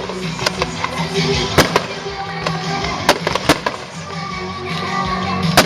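Fireworks going off in a series of sharp bangs, some in quick pairs and threes, the loudest near the end, over steady music.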